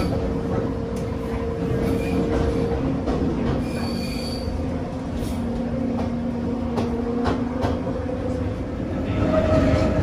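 Inside the cab of a 1960s electric railcar rolling through a curve: steady running rumble with wheel squeal. The squeal is a held tone for the first few seconds and comes back lower-pitched in the middle, with short high squeaks and a few sharp clicks.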